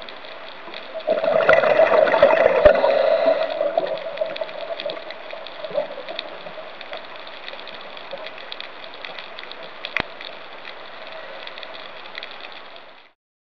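Underwater sound picked up through a camera housing: a steady hum, with a loud bubbling rush of a scuba diver's exhaled bubbles about a second in that lasts a few seconds. There is a single sharp click near the end.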